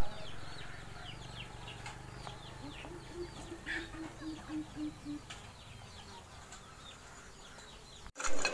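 Yard birds calling: thin, high, falling peeps keep going throughout, and from about two and a half seconds in a run of about nine low, evenly spaced calls lasts a couple of seconds.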